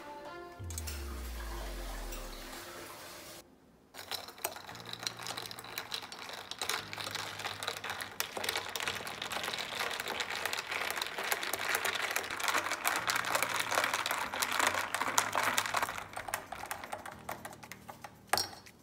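Metal teaspoons stirring two glasses of milk topped with whipped coffee, a dense run of rapid small clinks against the glass starting about four seconds in and dying down near the end.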